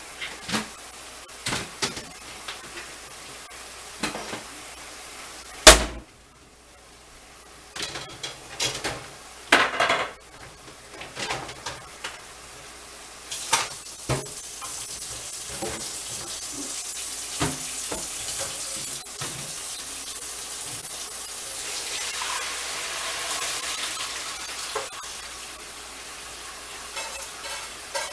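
Off-screen kitchen clatter of pots, pans and dishes being knocked and set down, with one loud bang about six seconds in. A steady rushing hiss builds through the second half and fades before the end.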